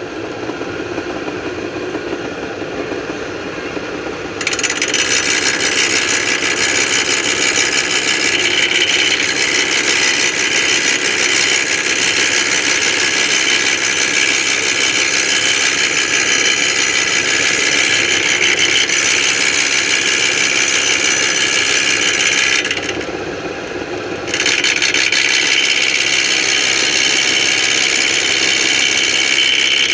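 Homemade lathe running with a four-jaw chuck turning. About four seconds in a louder, high-pitched scraping, grinding noise joins the motor hum. It stops for a second or two about three-quarters of the way through, then resumes.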